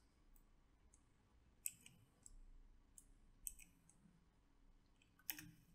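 Near silence broken by a few faint, sharp clicks of computer input, spaced one and a half to two seconds apart.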